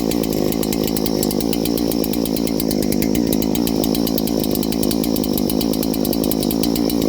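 Large two-stroke chainsaw engine of a brand-new NH8120, a clone of the Husqvarna 3120XP, running steadily on its first start, loud and at an even speed.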